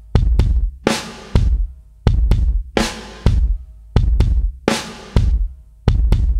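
Background music: a slow, heavy drum beat, deep bass-drum thuds alternating with sharp snare hits about every half second or so, with faint sustained notes between them.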